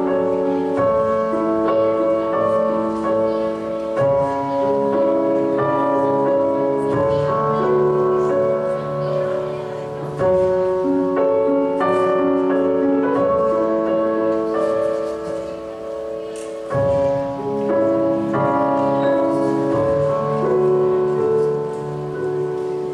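Music for a pole routine: a slow piece of held notes and chords that change every second or so, dipping briefly twice.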